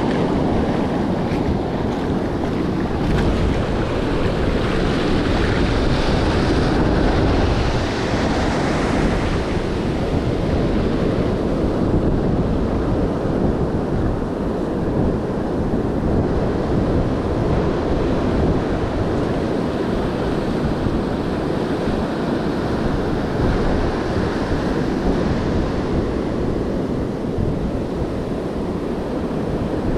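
Ocean surf breaking and washing through the shallows as foamy swash, with wind buffeting the microphone. The hiss of the water swells for several seconds a few seconds in, then eases to a steadier wash.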